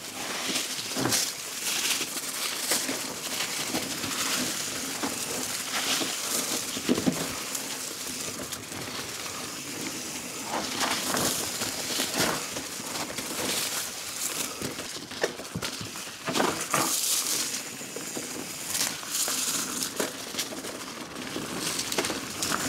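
Irregular crunching and crackling of loose trail ground being crushed, with scattered short crunches throughout.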